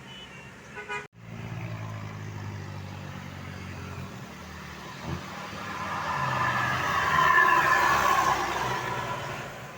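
A road vehicle passing by. Its engine and road noise build up, are loudest about three quarters of the way in, and then fade. Before that there is a steady low engine hum.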